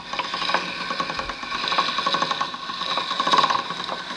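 Hand-cranked chrome pasta machine rolling a sheet of fresh pasta dough through its rollers, its crank and gears giving a fast run of clicks.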